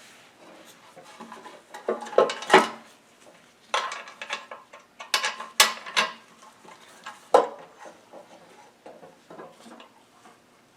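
Small metal parts and hand tools clinking and clattering in irregular bursts during lawn mower reassembly work, loudest a couple of seconds in and again past the middle.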